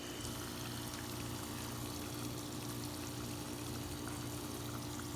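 Water spraying steadily from small drilled holes in a hose-fed half-inch PVC pipe frame, splashing down, over a low steady hum from an air conditioner.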